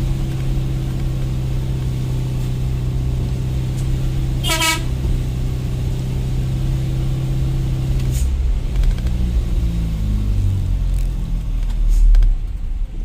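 Truck engine running steadily; its note changes and falls about two-thirds of the way through. A short horn toot sounds about four and a half seconds in.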